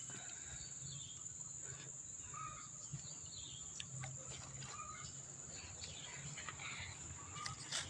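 Steady high-pitched insect drone, with short bird chirps repeating here and there over it and a few faint clicks.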